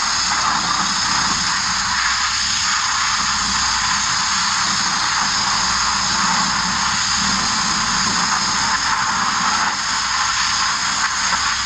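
Abrasive media blaster nozzle hissing steadily as grit is blasted against a van's metal body, an even rush of air and abrasive with a faint low hum underneath.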